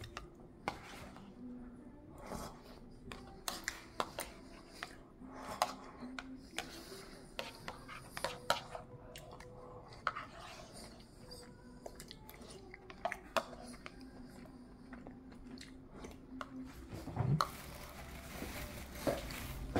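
A toddler chewing and biting a slice of whole-grain bread, with irregular small mouth clicks and smacks. A brief louder sound comes near the end.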